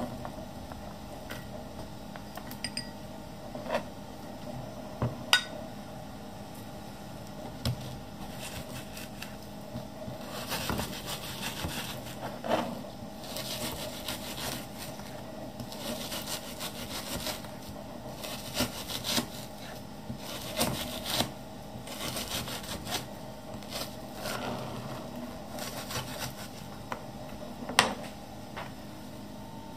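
Kitchen knife cutting bacon on a plastic cutting board: sawing strokes through the meat and quick runs of blade taps against the board as it is diced, with a few louder single knocks.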